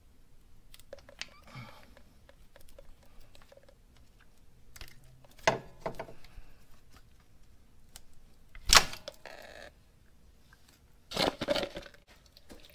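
Scattered clicks and knocks of metal parts and tools being handled while a motorcycle's rear brake master cylinder is worked free by hand. The loudest is a single sharp knock a little under nine seconds in, with a few more knocks near the end.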